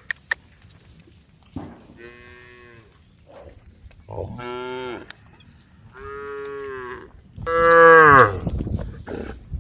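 Cows mooing: four long, drawn-out calls one after another, the last and loudest about eight seconds in.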